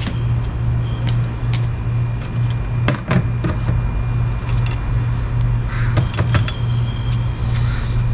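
Steady low mechanical hum, with scattered clicks and knocks as someone moves about close by.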